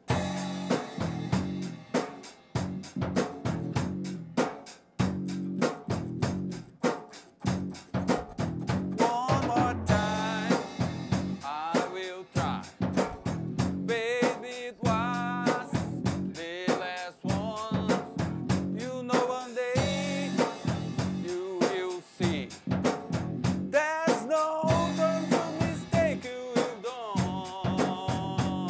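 Rock band playing an instrumental passage: a drum kit beat with snare and bass drum under a bass line. About nine seconds in, a lead melody with bends and vibrato comes in over the beat.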